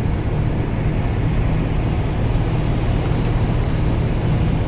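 Steady low drone inside a semi-truck cab under way: the diesel engine and road noise.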